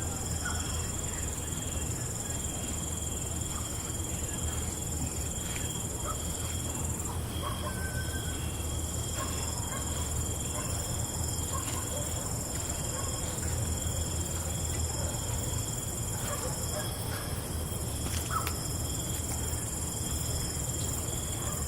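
Night insect chorus: crickets trilling steadily on several high pitches at once, with a few short gaps, over scattered small chirps and clicks and a steady low hum.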